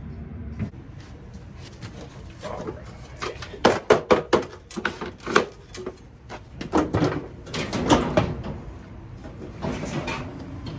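Irregular knocks, clicks and rattles of dryer parts and panels being handled, in two busy clusters about four and eight seconds in.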